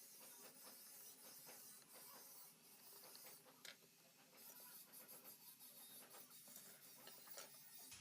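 Near silence with faint, scattered small clicks and light taps from handling small objects, over a steady hiss.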